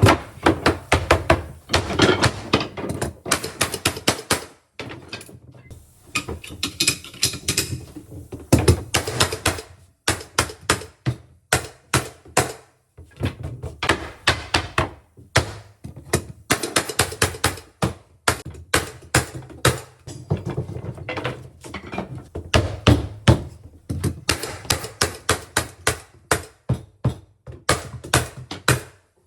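Rapid series of sharp knocks and taps, several a second, with a few brief pauses, from fastening and tapping hardwood floorboards into place.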